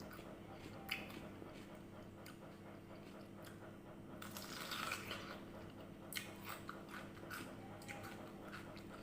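Close-up biting and chewing of crisp red water apple (jambu air), with wet crunching. A longer crunch about halfway through, then a run of short chewing clicks, over a low steady hum.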